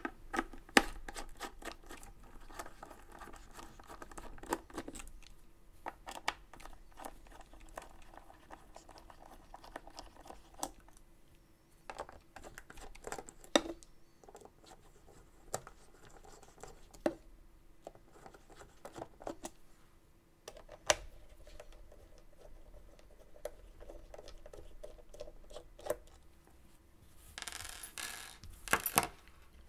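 A small Phillips screwdriver undoing the housing screws of a floppy disc delay unit: scattered light clicks and short scrapes of the screwdriver working in the screw heads, with small screws now and then set down, and a louder stretch of scraping and handling near the end.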